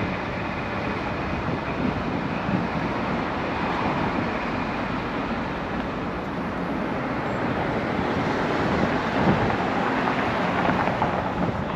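City street traffic noise: cars running past on the road, swelling louder a few seconds before the end, with wind rumbling on the microphone.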